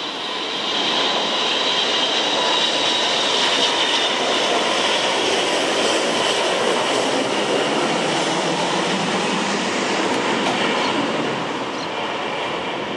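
Boeing 727-200 freighter's three Pratt & Whitney JT8D turbofans passing low overhead on final approach: a loud, steady roar with a high whine that slowly falls in pitch.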